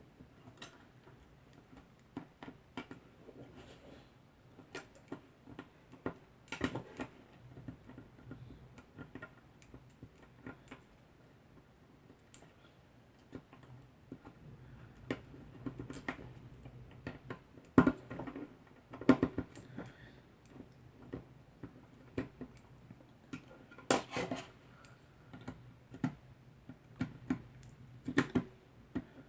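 Irregular small clicks and taps of hands working Cat6 cable, its conductors and plastic patch-panel parts while terminating the wires. A few sharper knocks stand out, over a faint steady low hum.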